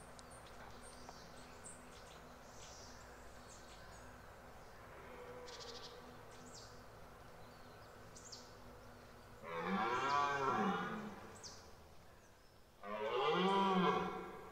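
Red deer stag giving its rutting roar: two loud, drawn-out bellows of about a second and a half each, the second starting about two seconds after the first ends.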